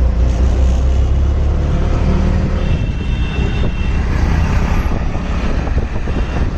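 Auto-rickshaw engine running with road and wind noise, heard from inside the open cabin while riding, a steady low rumble. A short high-pitched tone sounds about three seconds in.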